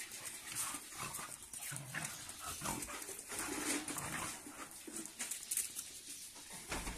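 Two dogs play-fighting: short growls and snarls mixed with irregular scuffling.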